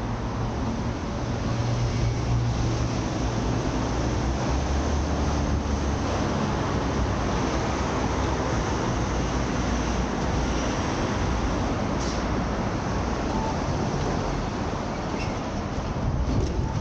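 Road traffic on a city street: a steady rush of passing vehicles, with a deep engine rumble that is strongest from about a second in to the middle.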